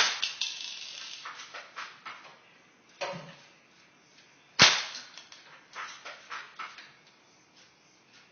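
Well MB-01 L96 spring-powered airsoft sniper rifle firing twice, about four and a half seconds apart, each shot a sharp crack followed by a run of lighter clicks. A smaller clack comes about three seconds in, between the shots, typical of the bolt being worked to cock the rifle again.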